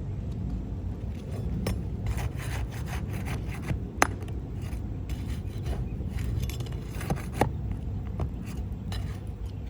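Scraping and rubbing on asphalt roof shingles as a shingle is worked loose, with several sharp clicks, the strongest about four seconds in and two close together past seven seconds, over a steady low rumble.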